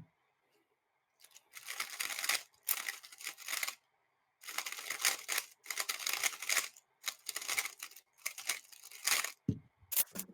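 A 3x3 speedcube being turned fast: dense plastic clicking in about seven bursts of roughly a second each, with short pauses between them. A low knock comes about nine and a half seconds in.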